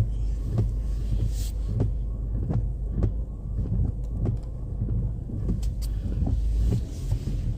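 Car engine rumble heard from inside the cabin while parking, with a string of light knocks and clicks; the deepest part of the rumble drops away near the end.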